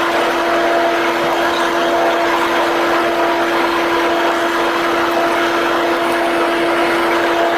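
Bombardier Dash 8 Q400 turboprop heard from inside the cabin: a steady drone from the engine and propeller with one strong, unwavering hum over a hiss of airflow.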